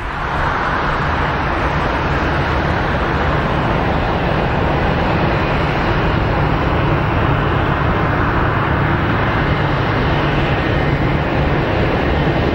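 Airbus A320's twin IAE V2500 turbofan engines running steadily as the airliner rolls along the ground, a constant jet rush with a low hum.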